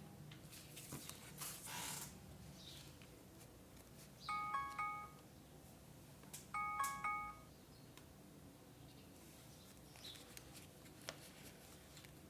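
A short chime of a few quick, clear notes, played twice about two seconds apart. Faint paper handling is heard near the start.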